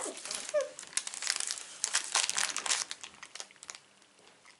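Foil snack wrapper crinkling and crackling as it is handled, in quick, irregular crackles that die down near the end.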